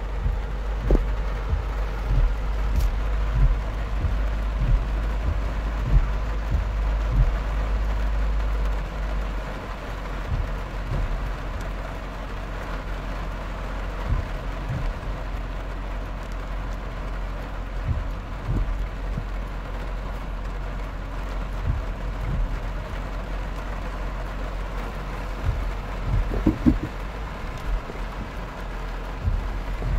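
Heavy rain drumming on a car's roof and windscreen, heard from inside the cabin, over the low steady rumble of the car driving slowly through floodwater, with scattered dull knocks.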